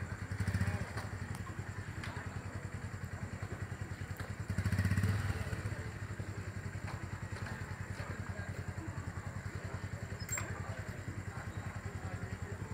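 A small engine running steadily with a fast, even putter. It swells louder twice, about half a second in and again around five seconds in.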